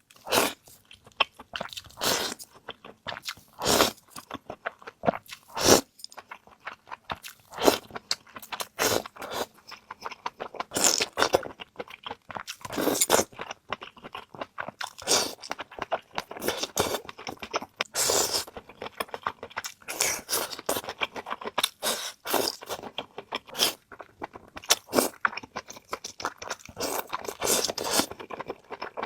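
Close-up crunching and chewing of crisp food: many sharp, irregular crunches a second, with wet chewing between bites.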